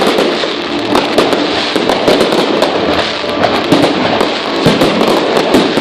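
Fireworks display going off continuously: dense crackling with many rapid sharp pops and bangs overlapping.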